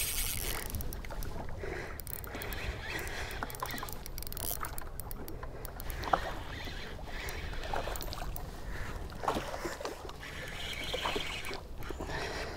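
Water lapping against the hull of a small fishing boat, over a steady low rumble of wind, with scattered light clicks and taps; the sharpest tap comes about six seconds in.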